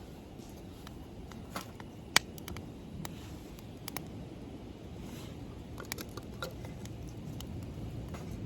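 Wood fire crackling in a fire pit: irregular sharp pops and ticks, one loud pop about two seconds in, over a low steady rumble.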